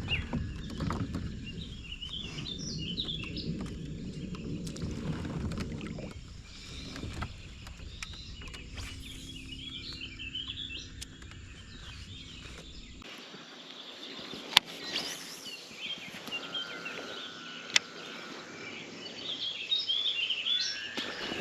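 Birds chirping and singing over a low rumbling noise that cuts off suddenly about two-thirds of the way through, with two sharp knocks in the later part.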